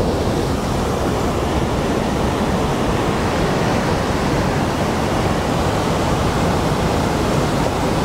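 Steady roar of a large volume of water pouring over a curved dam weir in full flood and churning in the pool below, a continuous rushing noise weighted toward the low end.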